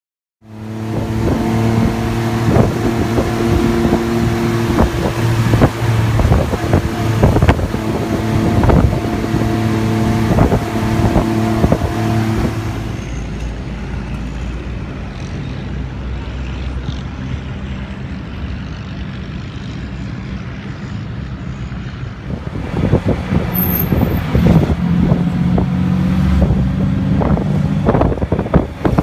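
Small motor vehicle engines running: first a steady engine hum with a clear pitch and repeated knocks, then a lower, steadier drone from about thirteen seconds in. From about twenty-three seconds in comes a tuk-tuk's engine running as it rides through traffic.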